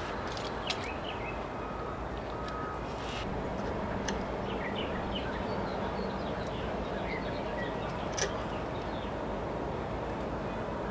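Steady outdoor background noise with small birds chirping faintly, and a few light clicks as PEX fittings and pinch clamps are handled on the pipe.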